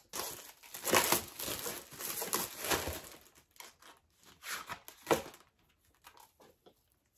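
Wrapping on an eyeshadow palette being crinkled and torn off by hand, densest over the first three seconds or so, then in scattered rustles, with a sharp click about five seconds in.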